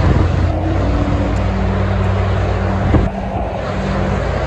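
Dense highway traffic passing below: a steady roar of tyres and engines from cars and tractor-trailers, with a truck's low engine drone that drops away a little after three seconds in. A brief thump about three seconds in.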